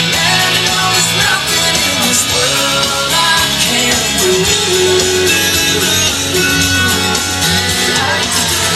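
Guitar-driven rock music playing steadily, with some singing.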